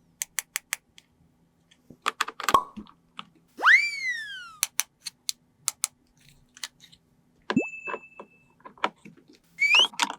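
Sharp clicks and taps of small plastic toy pieces being handled, mixed with cartoon 'boing' sound effects: sliding pitches that sweep up, one long one about a third of the way in and quick rising ones near the end.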